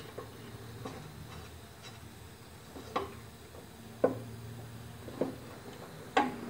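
Light, sharp metallic clicks, about half a dozen scattered a second or so apart, as the lawn mower blade bolt is threaded into the spindle by hand.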